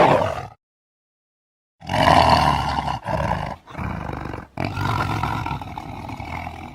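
Cartoon ape's roaring sound effects: a short loud cry, a second of silence, then a long roar in four pushes lasting about five seconds.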